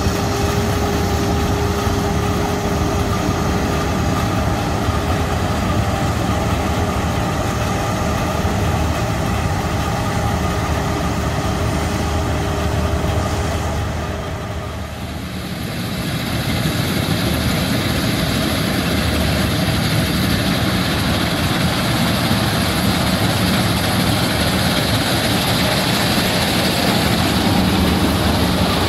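Claas Avero 240 combine harvester running under load while harvesting oats: a steady drone of engine and threshing machinery. The level dips briefly about halfway through, then the sound returns with more hiss.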